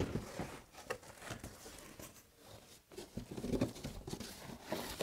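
Cardboard shipping box and the white wrapping around a truck grill being handled while unpacking: irregular rustling and crinkling with light knocks and taps.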